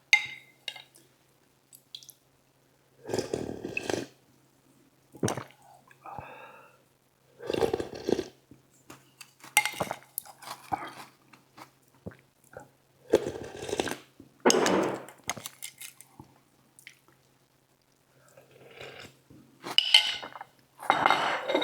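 Soup broth being eaten from a bowl with a spoon: a series of separate slurps, with the spoon clinking and scraping against the bowl, every second or two.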